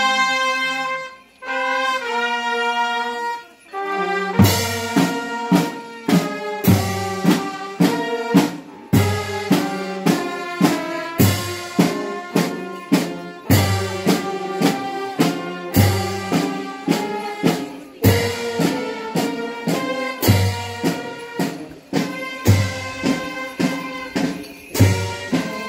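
Brass band playing a slow, mournful funeral march. Sustained brass chords come first; from about four seconds in, a bass drum and cymbals join, the bass drum striking about every two seconds with lighter beats between.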